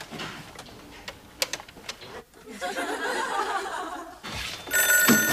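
Clicks of a rotary telephone being dialled, then a burst of audience laughter. Near the end an old telephone bell starts ringing as the call comes through.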